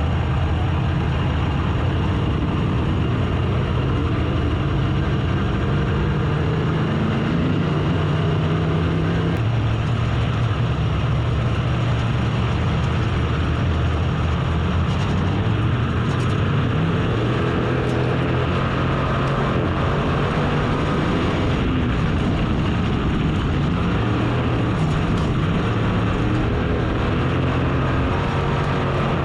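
Race car engine running hard at speed, its pitch rising and falling again and again as the throttle opens and lifts around the track.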